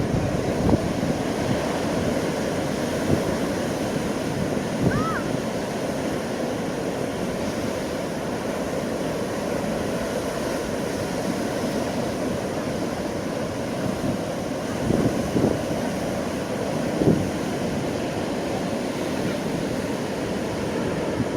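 Rough typhoon-driven surf breaking and washing over a rocky sandstone shore, a steady rushing roar with a few louder surges late on. Wind buffets the microphone.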